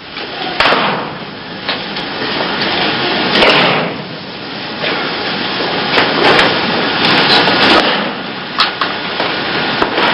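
Repeated thuds and slaps of bodies hitting the mat as aikido partners are thrown and take breakfalls, about one every second or so, over a steady noisy hiss.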